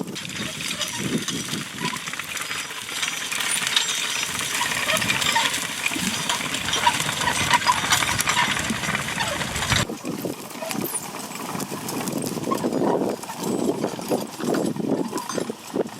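Work horses pulling a potato digger through the field: hooves clopping and the machine clattering. A dense rattling hiss full of small clicks runs for about ten seconds and cuts off suddenly; after that, lower uneven thuds and clops.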